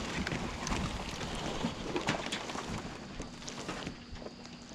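Wind noise on the microphone with scattered rustling and crackling.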